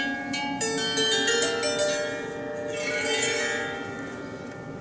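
Steel strings of a Cega 19-string lyre harp plucked in a quick run from low to high, the notes left ringing and slowly fading. The new lyre is still out of tune.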